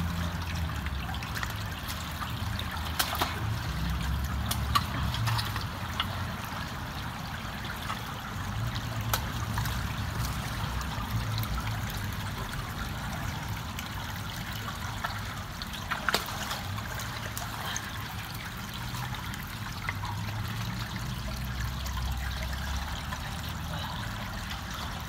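Water trickling and running into a culvert that is being cleared of beaver-dam sticks and mud, with a few sharp clicks of sticks being handled. A low rumble comes and goes underneath.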